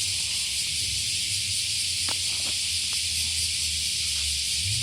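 Cicadas buzzing in a steady, high-pitched chorus over a low rumble, with a few faint clicks around the middle.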